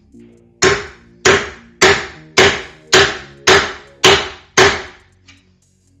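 Claw hammer striking a Ryobi latch-plate marking tool eight times, about twice a second, scoring the outline of the latch inset into the door edge around the bored hole. Each blow is a sharp metallic knock with a brief ring.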